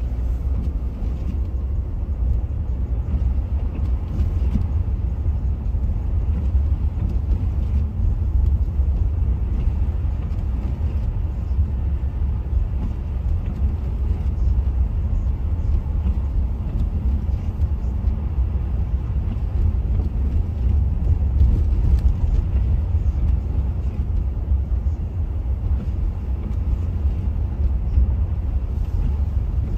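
Steady low rumble of a car being driven, engine and tyre noise running evenly without any sudden events.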